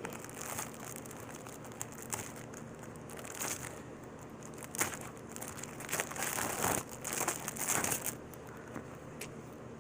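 Packaging crinkling and rustling in irregular bursts as it is handled and pulled off a phone case, with scattered small clicks and crackles.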